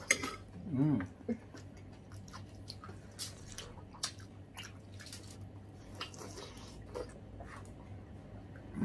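People biting into and chewing watermelon slices close to the microphone: many short, crisp bites and mouth clicks scattered throughout, with a brief hum from a voice about a second in.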